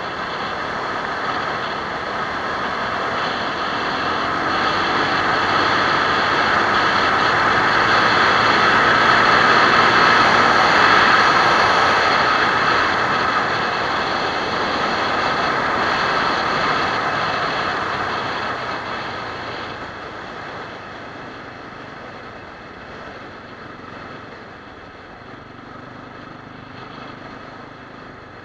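SWM RS650R single-cylinder motorcycle riding along a gravel road, picked up by an action camera on the bike: engine running under a heavy rush of wind and tyre noise. It grows louder to about ten seconds in, then gets steadily quieter over the last third.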